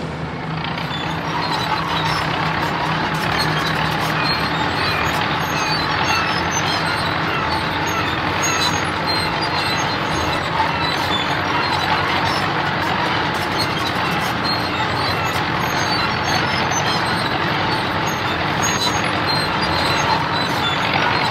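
Road roller engine running steadily, a cartoon vehicle sound effect, with light high-pitched chirps scattered through it.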